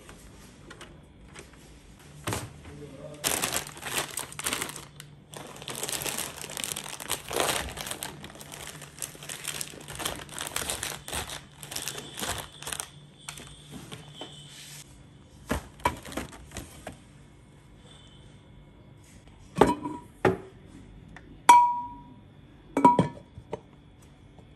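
Plastic snack wrappers crinkling as the packets are handled in a basket. Near the end come four sharp, ringing clinks from a large glass storage jar with a bamboo lid.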